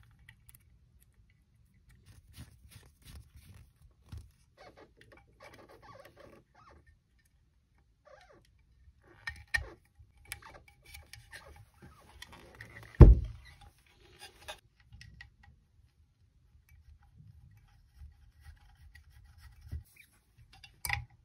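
Hands working on bench-grinder wiring: wires and spade connectors rustling, scraping and clicking against the metal switch housing, with a few sharp clicks. A single heavy thump about 13 seconds in is the loudest sound.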